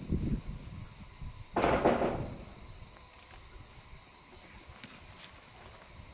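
Insects chirring steadily in a high, pulsing drone, like crickets or cicadas. There is rustling of gear early on, then one short, loud thump and rustle about a second and a half in.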